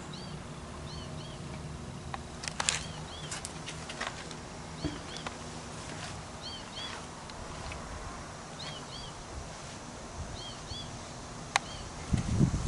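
A bird repeating a short high double chirp about every second and a half, over a low steady hum and a few scattered clicks.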